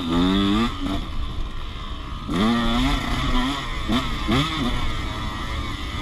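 Dirt bike engine, heard from on the bike, revving hard and then dropping off just under a second in, then rising and falling several times as the rider opens and closes the throttle through the track.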